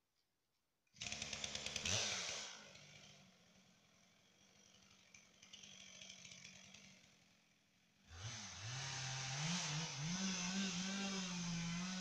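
Two-stroke chainsaw engine bursting into sound about a second in and revving up briefly, then falling back to a lower, uneven run. About eight seconds in it revs up again and runs steadily at high speed.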